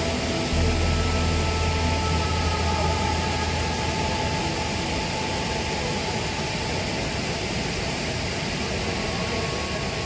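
Waterfall rushing steadily, a constant wash of falling water, with a low rumble for the first few seconds.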